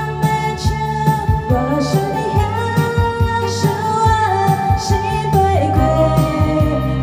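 A woman singing into a handheld microphone over an amplified backing track with drums and bass; she holds long notes that slide from one pitch to the next.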